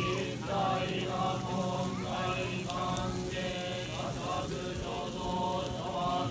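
Buddhist priests chanting a sutra together at a goma fire rite, many voices in a steady drone, over the crackle and hiss of a burning pyre of green boughs.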